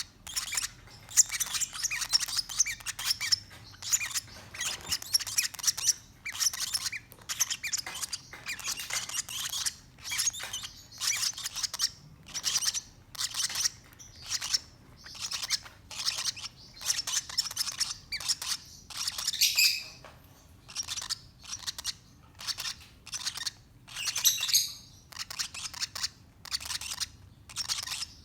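Parrot chicks (baby Pacific parrotlets and lovebirds) calling in a steady series of short raspy chirps, about one and a half a second.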